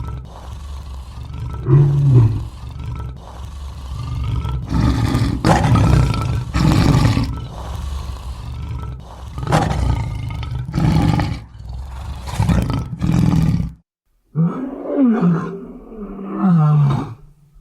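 Lion roaring: a run of deep roars and grunts repeated about once a second, then an abrupt break and a shorter burst of growling roars that waver in pitch.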